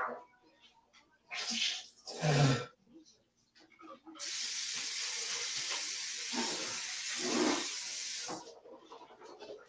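Two short splashy bursts, then a bathroom tap running steadily into a sink for about four seconds, between rounds of gargling mouthwash.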